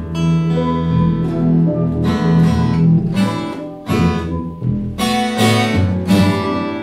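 Instrumental music: an acoustic guitar strumming chords, with a run of sharp strokes in the second half, over sustained low notes.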